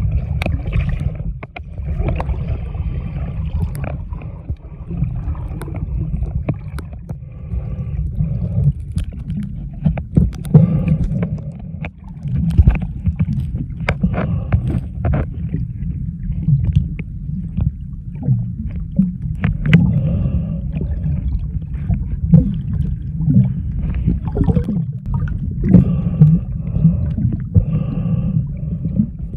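Muffled underwater sound picked up by a submerged camera: a steady low rumble of moving water, broken by scattered sharp clicks and faint bubbling.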